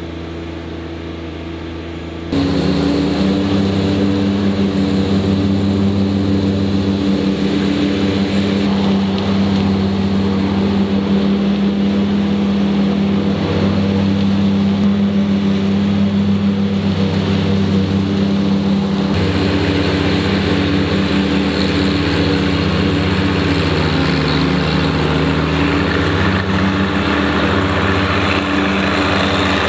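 John Deere 1025R compact tractor's three-cylinder diesel running steadily at working speed, with the mower deck and leaf-collection bagger running as it mows up leaves. The sound steps up abruptly in loudness about two seconds in and then stays steady.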